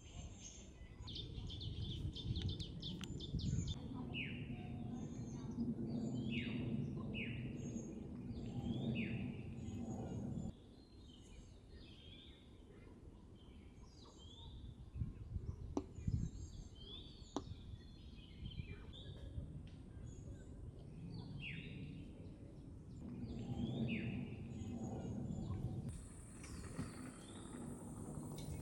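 Several songbirds calling, with many short whistled notes that slide down in pitch, repeated throughout. A low background rumble underlies the first ten seconds, cuts off suddenly, and comes back near the end.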